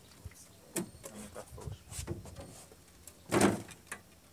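Small knocks and clicks of people moving about in an aluminium fishing boat, with one louder, brief scraping thump a little over three seconds in as a man sits down on the boat seat.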